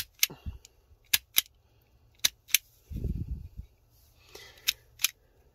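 Self-adjusting wire stripper clicking in pairs, about four times, as its jaws clamp and release on a wire, with a dull low thump about three seconds in. The tool keeps failing to strip the old wire's insulation.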